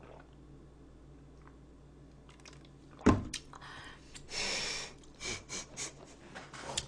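Faint room tone, then close-up eating noises: a sharp click about three seconds in, followed by short crunchy chewing sounds and a few quick clicks.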